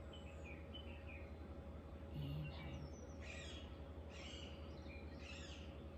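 Birds chirping outdoors: several short, scattered calls over a steady low hum.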